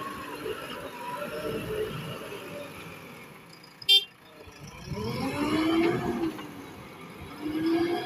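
JCB 3DX Super backhoe loader's 74 hp diesel engine running and revving as the machine works, the pitch rising from about four and a half seconds in and again near the end. A brief sharp click about four seconds in.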